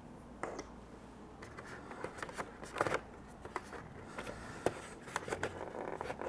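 Plastic board-game miniatures and their packaging being handled: scattered small clicks, taps and rustles, with a couple of sharper taps midway.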